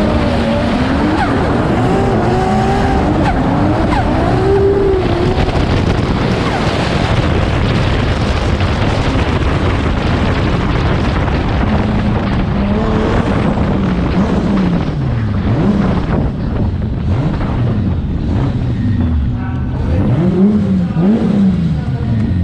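Drift car engine heard from on board, revving hard with its pitch swinging rapidly up and down while the car slides through a corner on the throttle, with tyre and wind noise. From about halfway it runs at lower revs, rising and dipping again and again as the car rolls along at slower speed.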